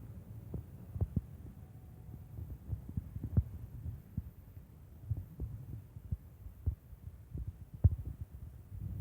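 Low rumble on the microphone with irregular soft thumps, a dozen or so, the loudest about a second in, midway and near the end, like wind buffeting a handheld phone microphone and handling knocks.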